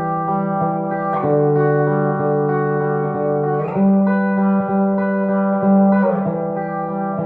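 1968 Gibson SG Junior electric guitar with its single P90 pickup, played through an amplifier. It plays sustained, ringing chords that change about every two and a half seconds, each change picked afresh.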